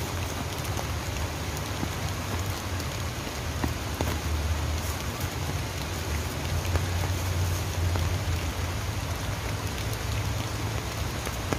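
Heavy rain falling steadily on the umbrellas overhead, with a steady low rumble beneath.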